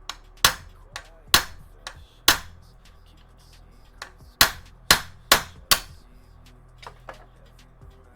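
Hammer blows on a hard drive's metal parts: three sharp strikes about a second apart, then after a pause of about two seconds four more in quick succession, with lighter taps between.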